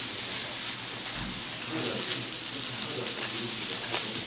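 Beef sizzling on a tabletop grill pan, a steady hiss, with faint voices underneath from about halfway.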